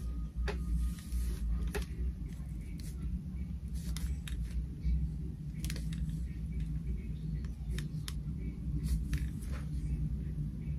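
Scattered light clicks and taps from handling a hot comb and the wig's hair, over a steady low hum.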